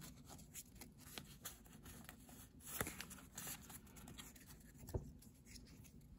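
Faint handling of Pokémon trading cards being flipped through one at a time: soft sliding with a few light clicks as cards are moved, the clearest around the middle and about five seconds in.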